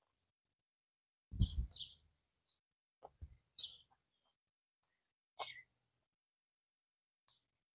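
Close-miked eating sounds: a few short mouth smacks and breathy puffs while chewing, separated by quiet, the loudest about a second and a half in.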